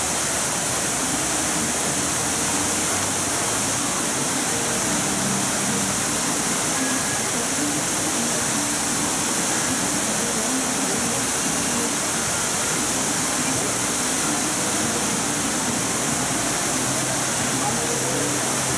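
Steady rush of water falling over the edge of a fountain basin in a continuous sheet.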